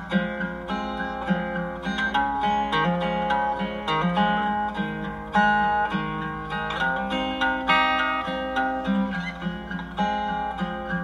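Instrumental background music of plucked guitar strings, a run of picked notes over lower sustained notes.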